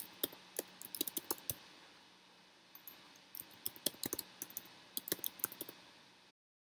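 Typing on a computer keyboard: two runs of quick key clicks, the second longer, cutting off suddenly near the end.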